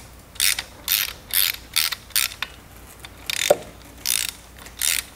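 Ratcheting screwdriver with a 6 mm hex bit backing out a bolt on the pump head of a Kranzle pressure washer: short bursts of ratchet clicking, about two a second, with a pause of a little over a second just past the middle.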